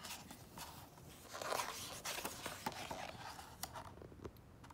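Page of a hardcover picture book being turned: paper rustling and crinkling in a string of short scrapes, with a few sharp clicks, busiest in the middle.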